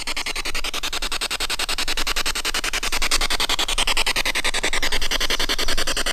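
Spirit box scanning rapidly through radio stations: a fast, evenly chopped rush of static.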